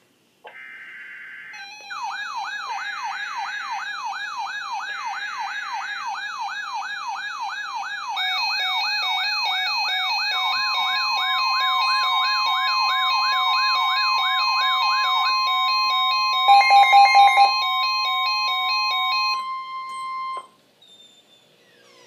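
Several NOAA weather radios alerting for a flash flood warning: three short bursts of screeching digital header data, then the radios' alarms overlapping: a fast warbling siren about two and a half sweeps a second, stepped beeping tones, and from about ten seconds in the steady 1050 Hz weather-radio warning tone. A burst of rapid beeps comes near the end, and all of it cuts off together just before the spoken warning.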